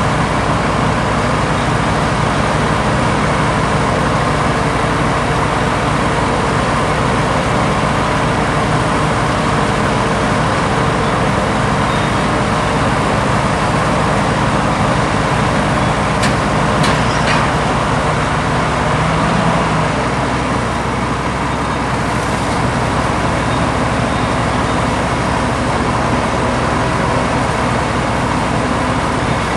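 Heavy diesel engines of side-boom crawler tractors running steadily at a derailment clean-up. A few sharp metallic clicks come about halfway through.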